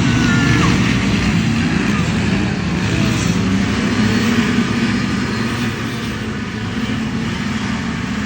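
Racing hovercraft engines running together, a steady dense drone with pitches that waver up and down.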